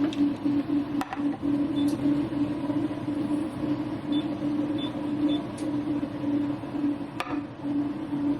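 A steady mechanical hum with a slight pulse, punctuated by a couple of sharp clicks, about one second in and near the end.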